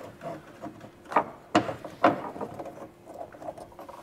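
Small clicks, taps and scrapes of a roof-rack bracket being worked by hand into place inside a Jeep's roll bar, with three sharper knocks in the middle.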